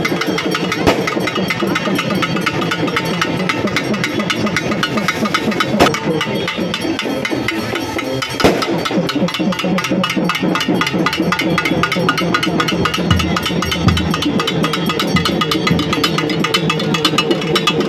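Rapid, steady drumming on festival drums, with crowd voices mixed in.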